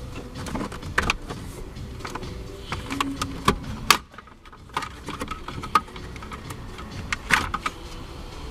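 Irregular clicks, knocks and clatter of tools and dash parts being handled, with a brief lull about four seconds in.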